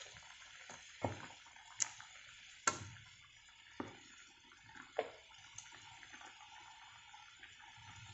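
Wooden spatula stirring a simmering curry in a nonstick frying pan: a handful of short knocks as the spatula hits the pan, over a faint bubbling of the sauce.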